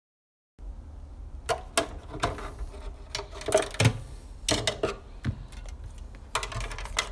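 Plastic and metal parts of a CRT television clattering as the set is handled and taken apart, a run of scattered clicks and knocks after a short gap of silence.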